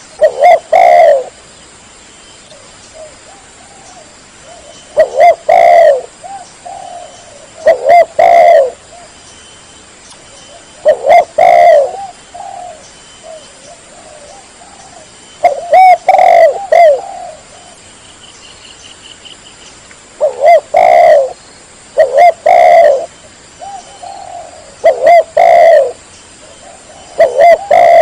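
Spotted dove (tekukur) cooing: about nine short, loud phrases of rounded, curving notes, repeated every two to four seconds. This is the dove's calling song, used as a lure to draw rival wild doves.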